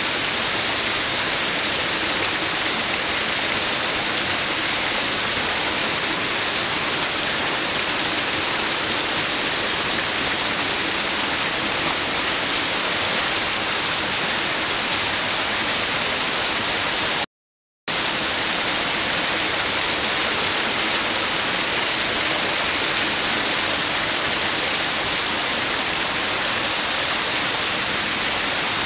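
Small waterfall pouring over mossy boulders into a pool: a loud, steady rush of water. The sound cuts out completely for about half a second roughly two-thirds of the way through.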